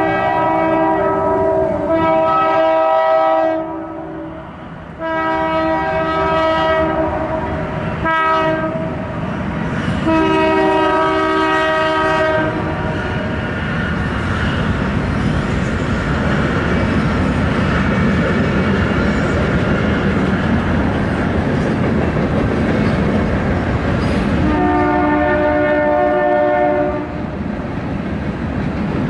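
BNSF freight locomotive's air horn sounding a chord in the grade-crossing pattern: several long blasts, a short one, and a final long one. Then the steady rumble and rail clatter of the train rolling through the crossing, and one more long horn blast near the end.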